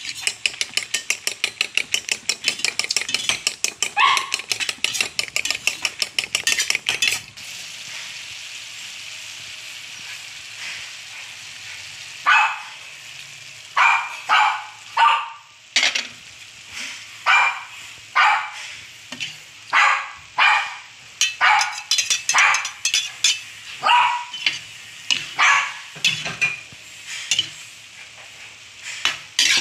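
Eggs being beaten briskly in a porcelain bowl, rapid even clinking strokes for about seven seconds. Then a quieter steady frying sizzle, and from about twelve seconds in a metal spatula scraping and stirring sliced bitter melon and egg in a stainless steel pan, about one stroke a second.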